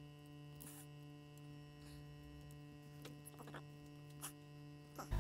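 Faint steady electrical mains hum with a few faint light clicks scattered through it.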